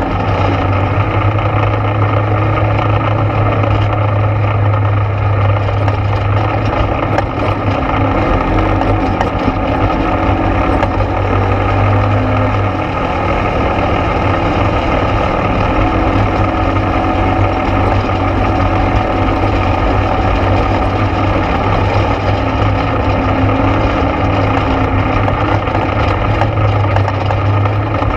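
ATV engine running steadily while riding a trail, with a brief easing of the throttle about halfway through.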